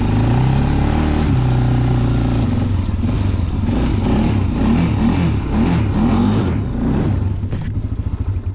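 ATV engine running under throttle, its pitch rising and falling as the throttle changes. Near the end it drops to a slow, pulsing low-rev run as the quad eases off.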